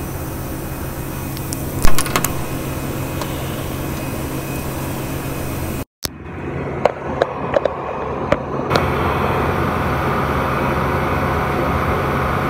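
Steady machinery hum with a sharp click about two seconds in, then after a brief dropout a run of small clicks and knocks from hands working the ink core of a Videojet inkjet printer.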